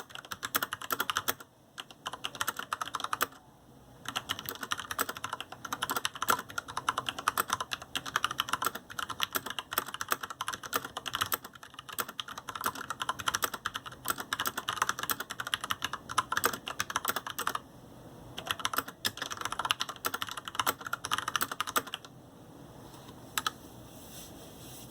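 Fast typing on a GANSS GS87-D mechanical keyboard with Cherry MX Red linear switches and PBT keycaps: a dense clatter of keystrokes broken by a few brief pauses. Near the end the typing stops, with one last keystroke after it.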